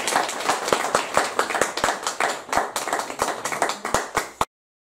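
Audience applauding with many overlapping hand claps, cut off abruptly near the end.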